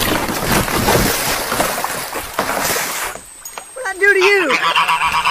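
Domestic goose attacking at close range: a loud flurry of beating wings and splashing water for about three seconds, then after a brief lull the goose honks repeatedly near the end.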